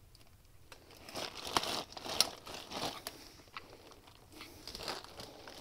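Plastic crinkling and clicking as hands work a small plastic clip and the plastic sensor on the washing machine's motor stator loose, with a couple of sharp clicks about a second and a half to two seconds in.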